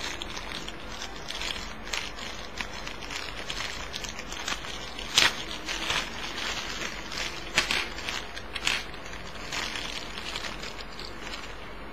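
Thin clear plastic bag crinkling and crackling as it is handled and opened to take out small plastic toy parts. There are a few sharper, louder crackles about halfway through and again later on.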